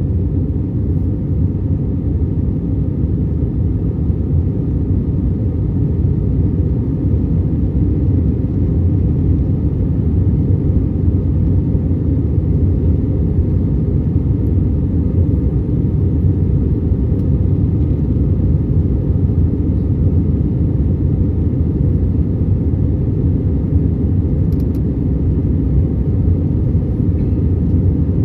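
Steady low rumble of an Airbus A320-200's jet engines and airflow, heard from inside the passenger cabin.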